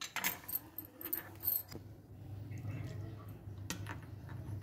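Metal cutlery clinking against a glass baking dish and tray: several light clinks in the first two seconds and one more near the end, over a steady low hum.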